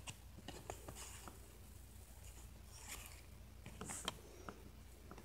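Faint rustling and soft clicks of trading cards being slid off one another in the hand, a few brief brushes spread through, the loudest about four seconds in, over a low steady hum.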